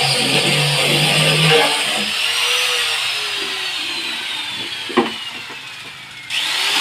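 Electric wood sanding machine running with a steady hiss. After about two seconds its pitch falls slowly and it fades as it winds down, with one sharp click about five seconds in. Near the end the full running sound cuts back in abruptly. Guitar music plays underneath.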